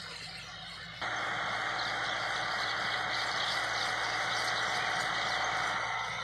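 Massey Ferguson 385 tractor's four-cylinder diesel engine running steadily as it pulls a disc harrow, under a loud even hiss that starts abruptly about a second in and drops away near the end, with faint high squeaky chirps over it.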